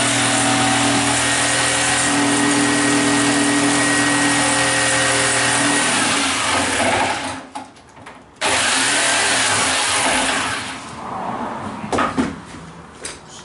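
Electric power tool motor running at a steady speed with a constant hum and whine, then winding down. After a short quiet spell it starts up again abruptly, runs for about two seconds and winds down again, followed by two sharp knocks near the end.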